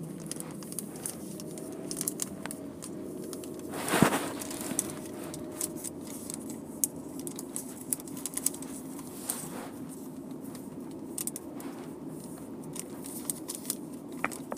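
Scattered crackling and rubbing clicks, like a handheld device being handled or rubbing against cloth, over a steady low hum, with one louder rustling thump about four seconds in.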